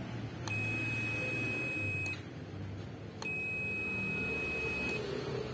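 Continuity tester beeping twice, each a steady high tone about a second and a half long that starts and stops with a click of the probes, as it checks the kettle's power switch contacts: the switch conducts and is still good.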